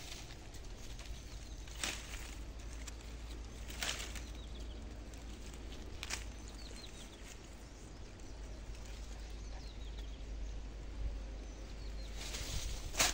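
Footsteps in dry leaf litter and rustling through undergrowth: a few sharp rustles about two seconds apart, then quieter shuffling.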